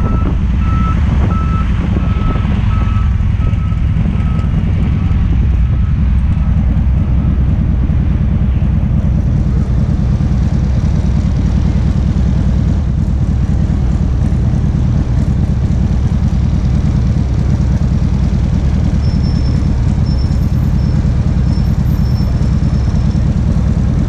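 1992 Harley-Davidson FXRP's 1340cc Evolution V-twin running at a steady idle. A reversing beeper sounds a high beep about twice a second over the first six seconds or so.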